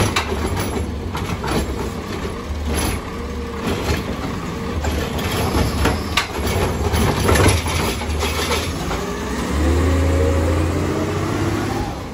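CCC-chassis Heil Rapid Rail automated side-loader garbage truck running while its arm lifts and dumps a cart, engine and hydraulics running with several clanks of the cart and arm. Near the end the engine revs up, rising in pitch, as the truck pulls away.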